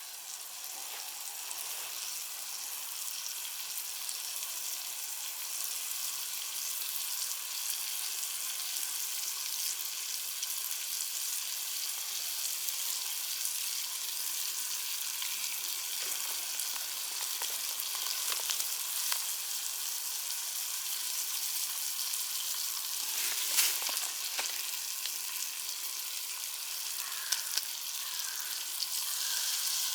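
Wild boar meat sizzling steadily as it cooks over a wood fire, with small crackles throughout and one louder pop about two-thirds of the way through.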